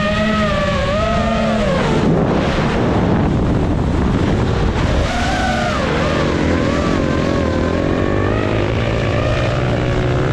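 Motors running and revving, their pitch wavering up and down, with a stretch of rough noise about two seconds in.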